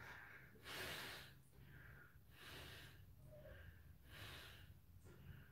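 A man breathing faintly and evenly while holding a yoga bow pose, a soft breath in or out about every second and a half.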